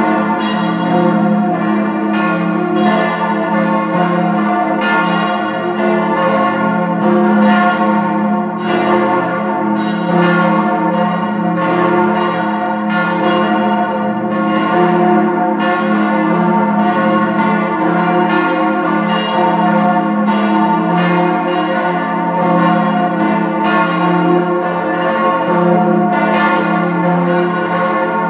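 Peal of four large swinging church bells cast by Rüetschi of Aarau in 1904, tuned F° A° c' f' to an F-major chord, the heaviest about 8,137 kg. The bells ring together, their strokes overlapping in a steady, unbroken stream of deep tones.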